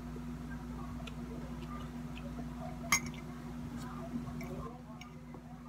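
A metal spoon clinks once, sharply, against a ceramic coffee mug about three seconds in, with a few light ticks around it, over a low steady hum.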